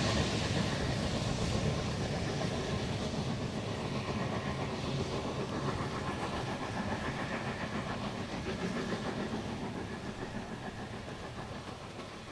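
A train made up of the 1910 SLM steam rotary snowplow Xrot d 9213 and the Bernina Crocodile electric locomotive rolling past and moving away, its rumbling noise fading steadily.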